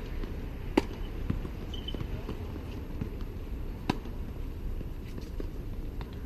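Tennis rally on a hard court: two sharp racket strikes on the ball, about three seconds apart, the first about a second in and the second near four seconds, with fainter ticks between, over a steady low background rumble.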